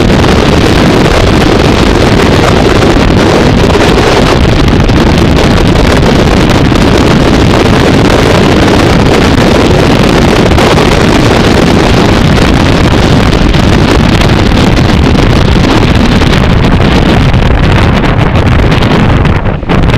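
Abarth 500 race car at speed, heard from a camera on the outside of the car: the engine and heavy wind buffeting on the microphone blend into one loud, steady, distorted rush. It drops off near the end.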